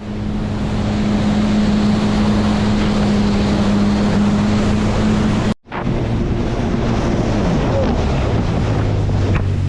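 Jet ski engine running at speed, with water rushing and wind buffeting the microphone. About halfway through the sound cuts off for an instant, and after it the engine hums at a lower pitch.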